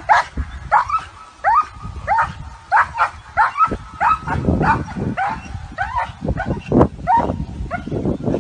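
A dog yipping over and over in short, high, upward-sliding yips, about two a second. A rougher, lower noise runs underneath in the second half.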